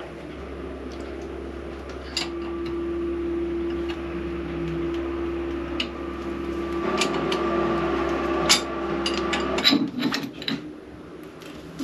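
A steady machine hum that stops abruptly near the end, with sharp metal clicks and knocks of tool work on the engine's exhaust fittings.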